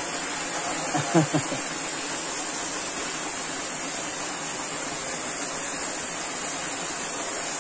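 Small waterfall pouring over rocks into a shallow pool, a steady rush of falling water.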